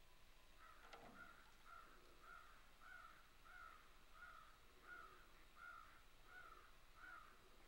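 Faint series of bird calls, short arched notes evenly repeated about twice a second, starting just under a second in and stopping shortly before the end.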